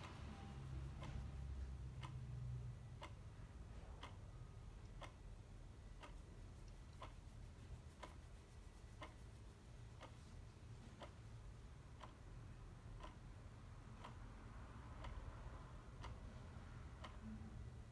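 Clock ticking faintly, about once a second, over a steady low hum.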